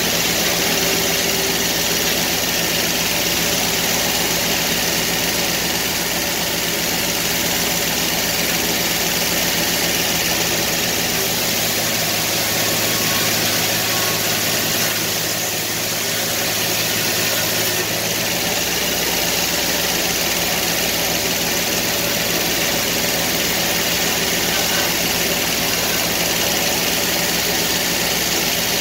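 Sawmill engine running steadily, its low hum easing for a few seconds about halfway through.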